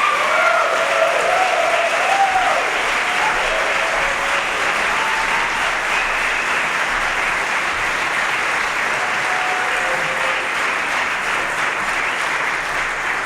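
Audience applauding and cheering at the end of a sung song, with a few whoops in the first two or three seconds.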